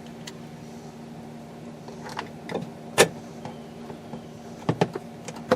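Scattered light clicks and knocks from refitting the plastic interior door panel of a 2001 Chevy pickup, the loudest a sharp click about three seconds in and a quick pair near the end, over a faint steady hum.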